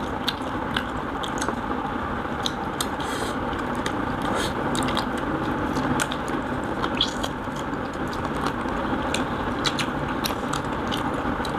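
Several people eating rice and curry with their hands and chewing, with frequent short smacks and clicks over a steady background hiss.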